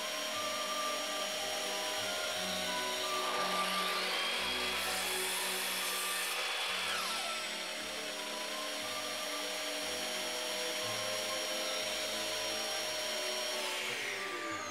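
Evolution mitre saw running and cutting short oak spline offcuts, its motor whining steadily. Its pitch shifts for a few seconds during a cut, and the motor spins down near the end.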